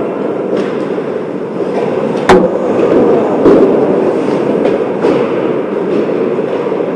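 Ice hockey play around the net: skates scraping the ice over the steady rumble of the rink, with a sharp crack about two seconds in and a smaller knock a second later.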